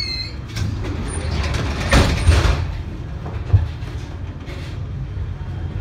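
Tram running on street track, heard from inside its rear car, with a steady low rumble. About two seconds in there is a short burst of hissing, and a single knock comes about a second and a half later.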